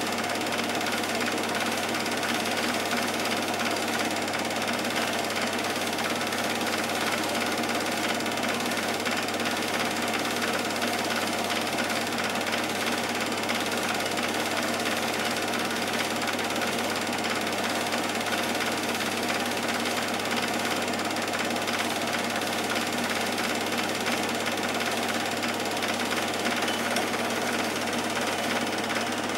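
Cine film projector running: a steady, fast mechanical clatter and whir from the film transport, with no change through the whole stretch.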